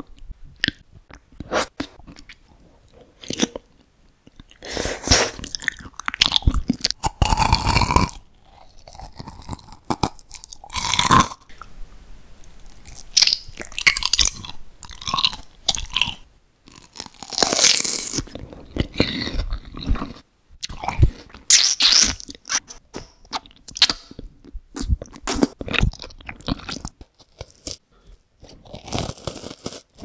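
Close-miked eating sounds: a person biting into and chewing jelly and candy foods, with crunches and chews in irregular bursts separated by short pauses.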